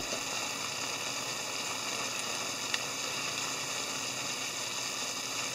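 Hijiki, vegetables and fried tofu simmering in a frying pan: a steady hiss of bubbling liquid, with one faint tick about two and a half seconds in.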